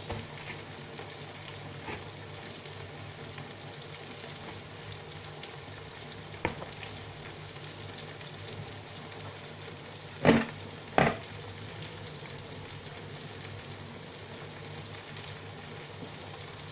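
Oil sizzling steadily under a frying stew base of onion, tomato and pepper. Three sharp knocks cut through it: one about six seconds in, then two louder ones close together about ten seconds in.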